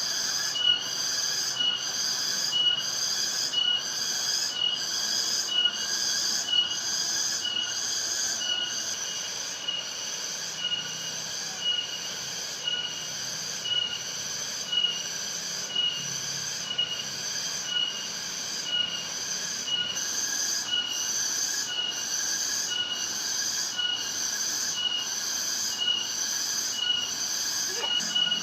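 A chorus of insects calling in a steady high-pitched pulse, about one and a half beats a second, over a faint rushing of falling water.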